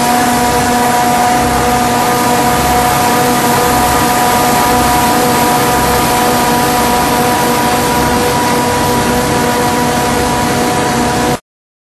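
Machinery of a plastic granulation (pelletizing) line running: a steady hum of several tones over constant mechanical noise, with a slow low pulsing underneath. It cuts off abruptly near the end.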